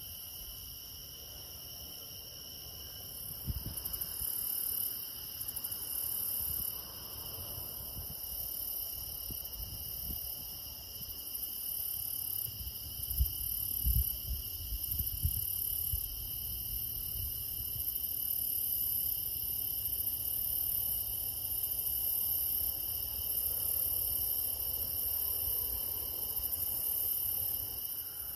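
A steady chorus of crickets and other night insects, buzzing at several high pitches at once on a summer night. A few low thumps and rumbles come a few seconds in and again around the middle.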